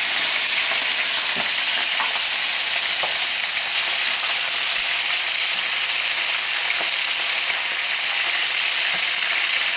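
Seasoned chicken tenderloins frying in a skillet of shallow oil: a steady sizzle, with a few light clicks as tongs turn the pieces in the pan.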